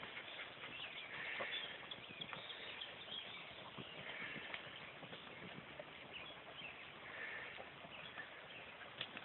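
Faint rustling and small twig snaps of hunting beagles working through thick brush. A short call recurs in the background about every three seconds.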